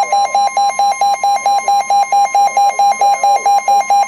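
Weather radio warning alarm: a steady tone near 1 kHz, the 1050 Hz warning alarm tone, with a second, lower alarm tone beeping about five times a second over it. It signals that a warning is about to be broadcast, here a severe thunderstorm warning.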